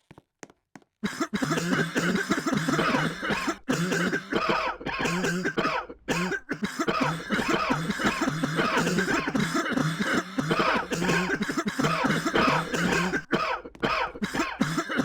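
A person coughing over and over in a long fit that starts about a second in, broken only by brief gaps.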